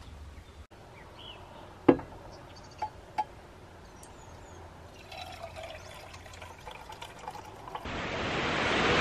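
Coffee being poured into a mug, with a sharp knock about two seconds in and a couple of light clicks after it. Near the end the sound cuts to the steady rush of a waterfall.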